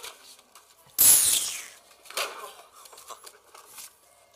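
A sudden loud whoosh about a second in, falling in pitch as it fades within under a second, then softer scattered rustles.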